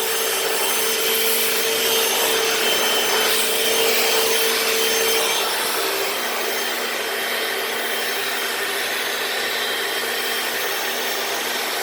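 Hoover FloorMate hard-floor wet cleaner running in wash mode, its suction motor whirring steadily while the spinning brush rolls scrub and rub across a stained concrete garage floor. The motor's hum shifts slightly about halfway through.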